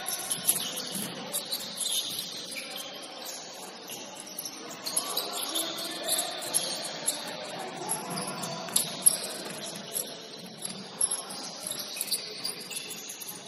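Basketball shoes squeaking on a gym floor during play, in short high squeals, with a few sharp knocks and faint shouting among the players.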